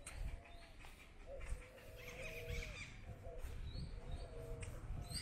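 An animal's low calls: short notes that each rise and fall, repeated about once a second, with faint higher chirps and a low rumble underneath.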